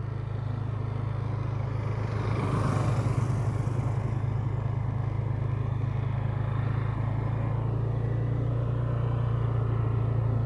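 Motorcycle engine running steadily while riding, with wind and road noise over it; a brief louder rush of noise comes about two seconds in.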